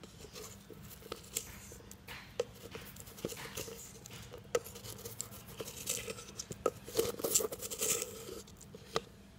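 Metal spoon scooping and stirring through granular propellant grains in a plastic bucket: irregular crunchy rattling and scraping with sharp clicks, busiest about seven to eight seconds in.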